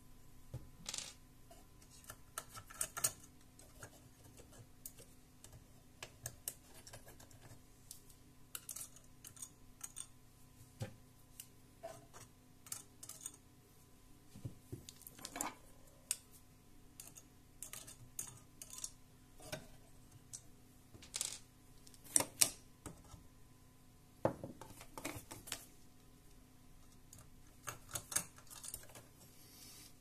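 Irregular light clicks, taps and scrapes of a small screwdriver against the plastic CPU fan and metal chassis of a Dell Vostro 3471 desktop as the fan is worked loose from its heatsink. A few louder clacks come about two-thirds of the way through.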